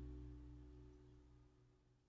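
Background music fading out, its last held notes dying away to near silence.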